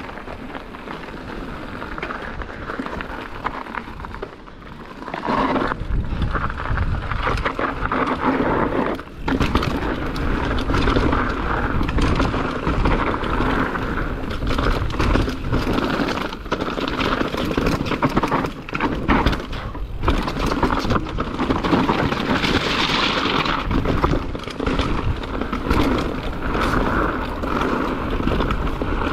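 Mountain bike descending a dirt trail: tyres rolling over dirt and rocks, with frequent clattering knocks and rattles from the bike. It is quieter for about the first five seconds, then louder.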